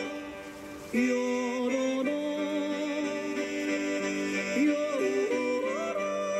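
Background music: a slow melody of long held notes with vibrato, dipping briefly before a new phrase enters about a second in.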